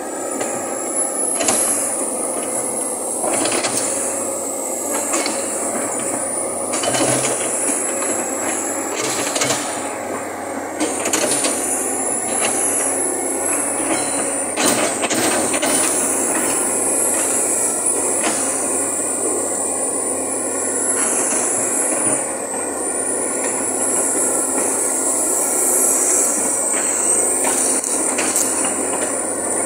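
Komatsu PC200 hydraulic excavator working, its diesel engine and hydraulics running steadily as the arm moves and the machine travels on its steel crawler tracks. A high squeal rises and falls throughout, with occasional sharp clanks.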